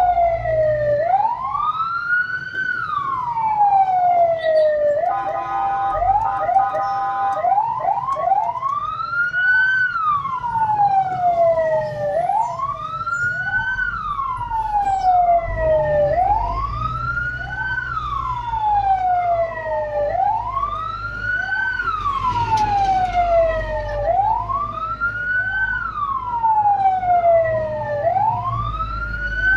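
Fire truck siren in wail mode, repeatedly sweeping quickly up and then slowly down, about once every three to four seconds. About five seconds in it breaks into a steady horn-like blast of about two seconds and a few quick yelps, then goes back to wailing. A truck engine rumbles underneath.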